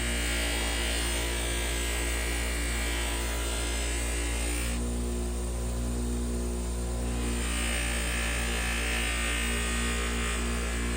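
An electric power tool motor running with a steady hum, with a grinding hiss from abrasive work on the blade over it. The hiss drops away for about two seconds in the middle, then comes back.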